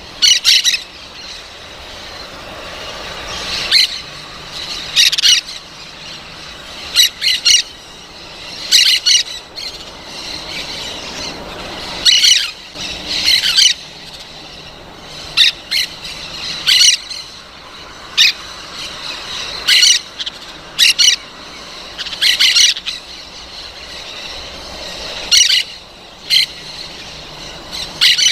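Parrot squawking: short, harsh, high-pitched calls, often in quick pairs, repeating every second or two.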